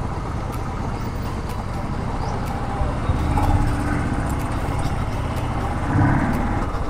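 Royal Enfield Thunderbird 350X's single-cylinder engine running at low speed in slow street traffic, with traffic noise around it. It gets briefly louder about three and a half seconds in and again near the end.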